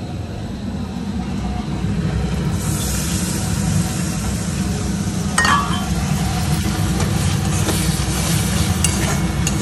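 Coconut milk poured into hot oil in a metal kadai, sizzling from about two and a half seconds in, with a metal spatula clinking against the pan as the mixture is stirred. A steady low rumble runs underneath.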